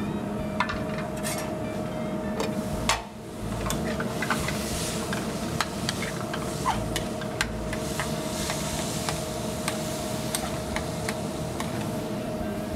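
Ground chicken with onions, bell pepper and garlic sizzling in a hot skillet while a spoon stirs it, clinking and scraping against the pan at irregular moments.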